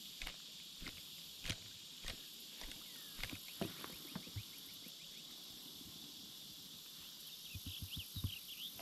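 Faint outdoor ambience: a steady high-pitched hum with irregular light knocks and rustles, and a quick run of short chirps near the end.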